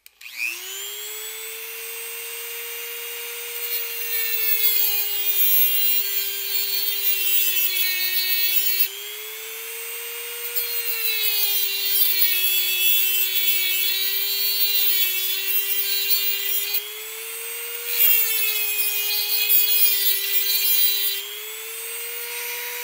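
Dremel rotary tool with a cut-off wheel starting up and whining steadily at high speed as it grinds a slot into a thin metal potentiometer bracket. There are three cutting passes, a little after three seconds in, around ten seconds and around eighteen seconds. During each one a harsh scraping hiss rises over the whine and the motor's pitch sags slightly under the load.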